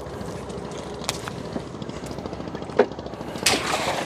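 Small boat engine running steadily with a fast chugging pulse, with a few sharp knocks and a louder rustling, splashy burst about three and a half seconds in.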